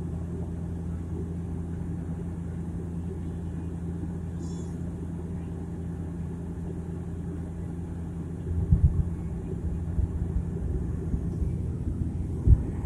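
Steady low drone and propeller hum of a turboprop airliner heard from inside the cabin. From about two-thirds of the way through, irregular low thumps and rumbling join in, with a sharp bump near the end.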